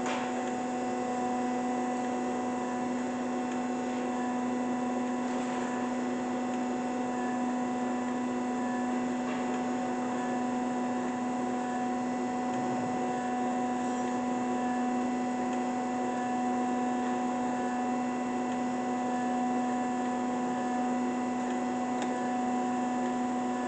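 Boyar-Schultz 618 hydraulic surface grinder running in auto mode: the spindle motor and hydraulic pump give a steady hum with one strong low tone. A machine in good running order.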